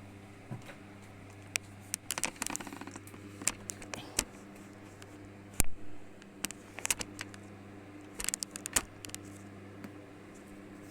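Irregular sharp clicks and taps, some in quick clusters, with one louder knock about halfway through, over a steady low hum.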